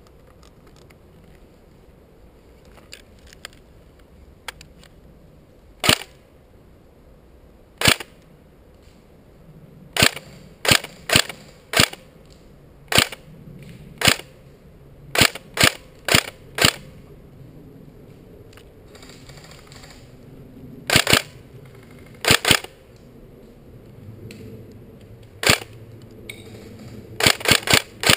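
Tokyo Marui G36C recoil-shock airsoft electric gun firing single shots: sharp cracks at uneven intervals, some in quick pairs, then a fast string of about half a dozen shots near the end.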